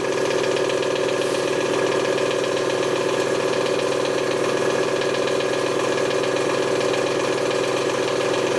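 Tabletop electric candyfloss machine running, its motor spinning the heated sugar head with a steady mechanical hum while floss is being spun.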